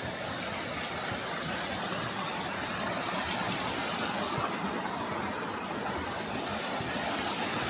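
Steady rush of a rainforest creek's flowing water.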